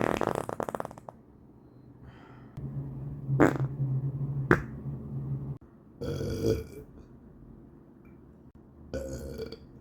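A run of human farts and burps. A loud, rapidly fluttering one trails off over the first second, then a long, low, steady one runs from about two and a half seconds in with two sharp clicks in it, and two short bursts follow near six and nine seconds.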